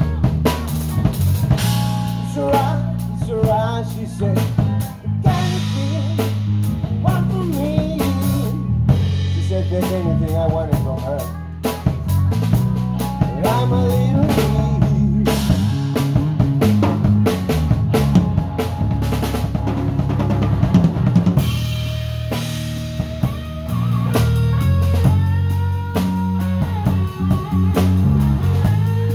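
Live rock band playing an instrumental passage: a lead electric guitar line with bent notes over a drum kit and bass.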